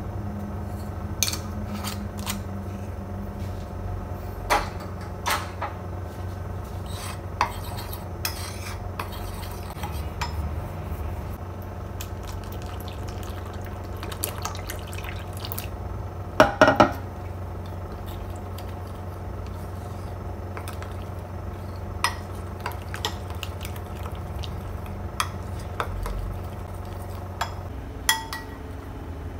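Spoon clinking, tapping and scraping against a glass mixing bowl while flour batter is mixed. The taps are scattered, with a quick cluster of loud clinks about two thirds of the way through, over a steady low hum.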